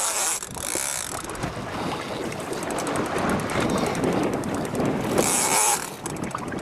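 Wind buffeting the microphone over the steady rush of a boat at sea. It swells in two gusts, one near the start and one about five seconds in, and under it a fishing reel clicks quickly and faintly as the line is wound in.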